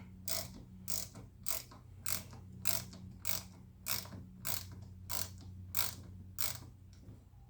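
A quarter-inch drive ratchet with a T20 Torx bit clicking as it is swung back and forth to back out a screw, about two sharp clicks a second, stopping shortly before the end.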